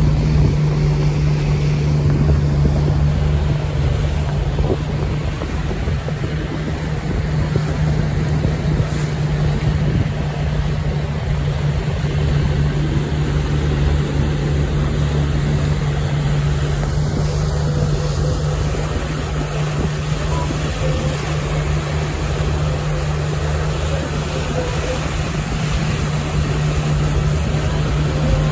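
Boat motor running at a steady low drone, with wind noise on the microphone.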